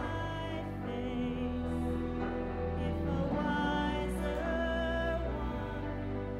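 A woman singing into a handheld microphone over a sustained musical accompaniment, holding long notes with vibrato.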